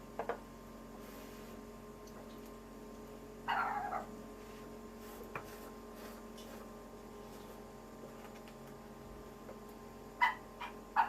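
Short animal calls, likely a pet: one lasting about half a second around three and a half seconds in, and two brief ones near the end, over a steady low hum.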